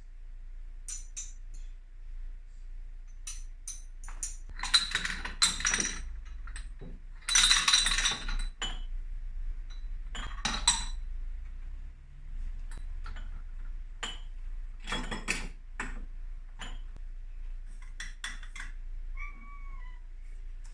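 Kitchenware clinking and clattering: a run of sharp clicks and several short bursts of rattling metal or glass, with a brief high squeak near the end.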